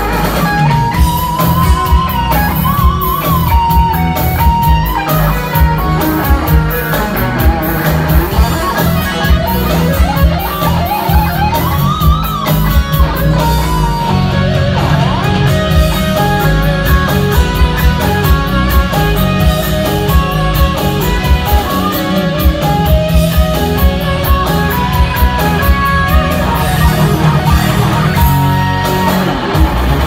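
Live instrumental metal: an electric guitar plays a lead melody with pitch bends and vibrato over drums.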